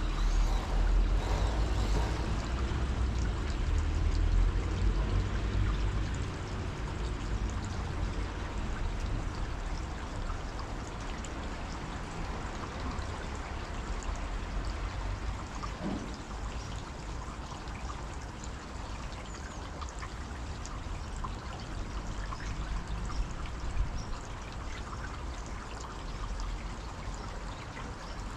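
Steady rushing and splashing of water over a deep low rumble, louder for the first six seconds.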